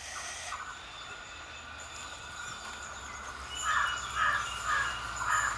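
A bird calling four times in quick succession, about two calls a second, over steady outdoor background noise with a faint low hum.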